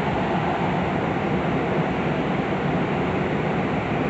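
Steady running noise inside a Tobu 9050 series train car in a subway tunnel: wheels rolling on the rails with a low rumble and an even, unchanging hum.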